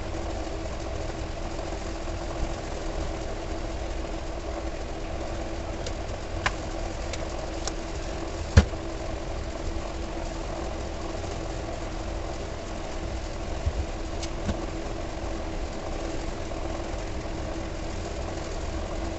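Steady machine hum with a low rumble, broken by a few light clicks and knocks from handling the car stereo during its repair. The loudest knock comes about eight and a half seconds in.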